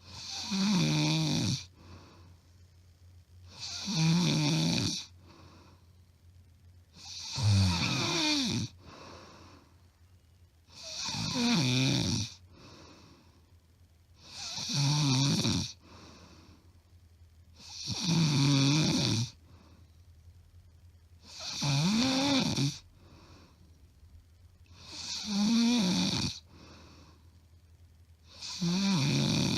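A woman snoring very loudly in her sleep, recorded up close: nine heavy snores at an even pace about every three and a half seconds, each lasting a little over a second, with soft breaths between. It is plain loud snoring, which the uploader says is not from sleep apnea.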